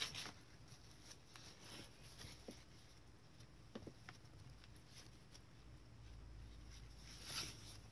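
Faint rustling and soft taps of thick tea-stained paper pages being turned and handled in a handmade journal, a little louder right at the start and again near the end.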